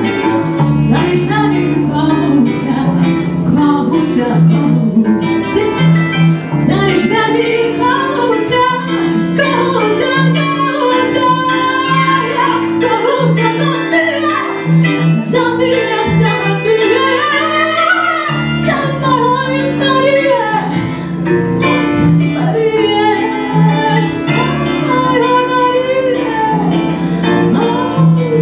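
A woman singing a Ukrainian folk song to a plucked bandura, over a steady pulsing low accompaniment.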